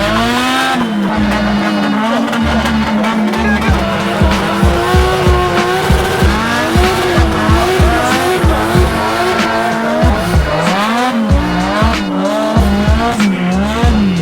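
Drift cars' engines revving up and down hard with tyre squeal, over background music with a steady beat.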